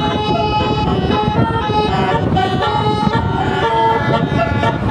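Telolet basuri bus horn playing a tune: several horn trumpets sound together in chords that change note every half second or so, over a dense low rumble.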